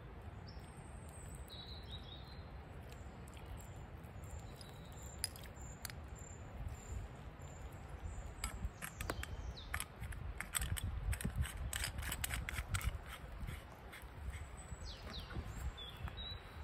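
Sharp clicks and clinks of a metal water bottle and cup being handled, bunched in the middle, over a steady low rumble. A few bird chirps come near the start and again near the end.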